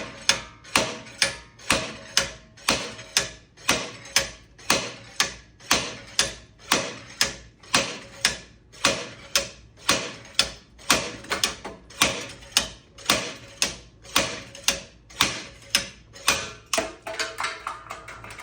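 Orion Motortech slide hammer being worked against a minivan's rear hub assembly: the sliding weight strikes its stop in sharp metal-on-metal impacts, about two a second, steady and unbroken. It is hammering the rear hub and wheel bearing assembly out of its knuckle.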